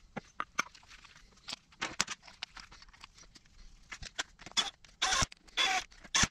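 Oil pump parts clicking and knocking as they are handled and fitted back together by hand, a scatter of short, sharp ticks, with two short, louder rasps near the end.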